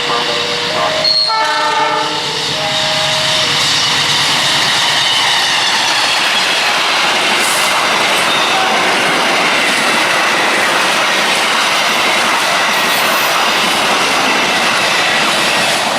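Train horn sounding with several held tones during the first few seconds, then a passing train's steady rushing wheel-on-rail noise for the rest.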